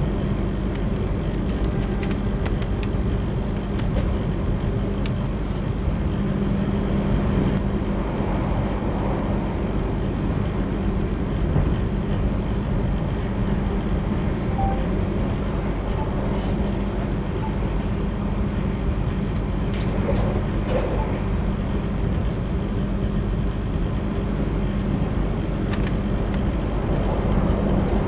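Steady running noise of a train heard from inside the passenger carriage: a constant low hum under an even rumble, with a few light clicks.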